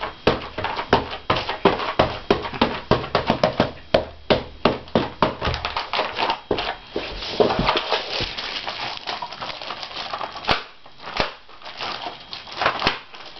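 Fists pounding and slapping on a flexible rubber mini keyboard, a fast run of thumps several a second that thins out near the end.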